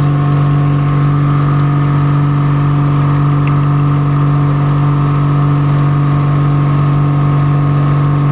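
Nissan Pathfinder 4.0 L V6 engine idling steadily while misfiring on cylinder 5, which a swapped ignition coil has not cured, pointing to the spark plug or injector.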